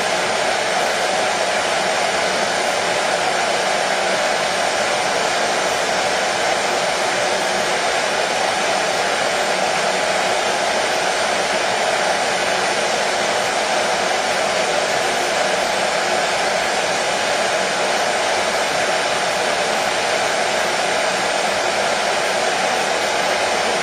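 Hair dryer running steadily, a loud even whooshing of fan and air with a faint steady motor hum, unchanging throughout.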